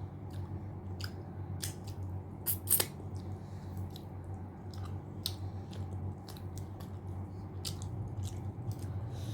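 Close-miked eating sounds: a person chewing a mouthful of mutton curry and rice, with many short wet mouth clicks and smacks, the loudest pair about two and a half seconds in. A steady low hum runs underneath.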